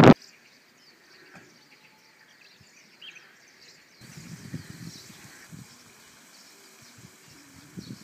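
Loud wind on the microphone cuts off suddenly right at the start, leaving faint outdoor ambience with a few soft bird chirps. About halfway through, a low rustling noise comes in and stays.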